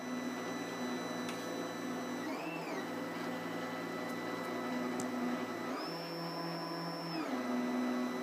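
Stepper motors of a Trinity Labs Aluminatus 3D printer whining as they drive its lead-screw axes, laying down the first-layer outline. The whine shifts pitch as the print head changes speed and direction: it arcs up and back down briefly, and later steps up, holds for about a second and a half, then drops back.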